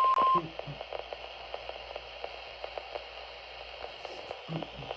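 NOAA Weather Radio warning alarm tone, a steady 1050 Hz beep from a weather radio, cutting off suddenly about half a second in. It marks the weekly test of the warning alarm. After it comes steady radio hiss with faint ticks.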